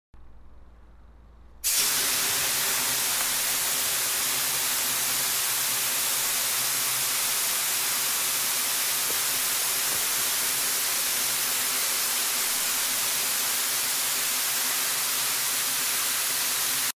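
A faint low hum, then a loud, even hiss like white noise that starts abruptly about two seconds in, holds steady, and stops abruptly near the end.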